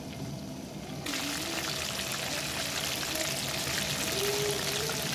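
Breaded chicken pieces deep-frying in hot cooking oil: a steady sizzle and crackle of bubbling oil, which jumps suddenly louder about a second in.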